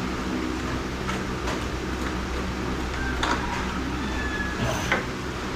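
A steady mechanical hum with a few light clicks and short scrapes, and a sharper click about five seconds in.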